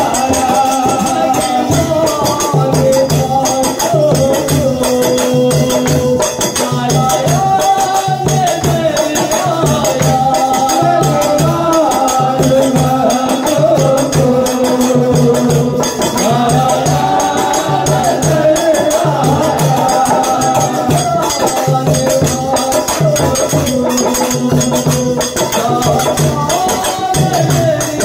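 Devotional group singing of a Hindu bhajan or kirtan with a steady low drum beat about once a second, jingling hand percussion and hand-clapping.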